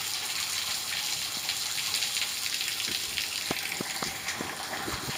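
Steady rain falling and water running, with a few louder drips landing between about three and five seconds in.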